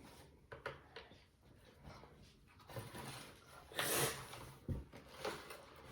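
Plastic Lego pieces being handled and pressed back into place, with a few light clicks. A short, louder noisy burst comes about four seconds in.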